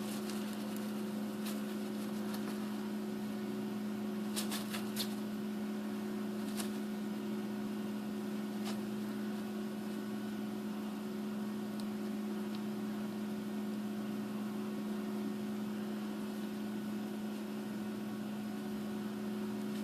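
A steady electrical hum with two low tones, and a few faint short clicks: a cluster of three about four and a half seconds in, then single ones now and then.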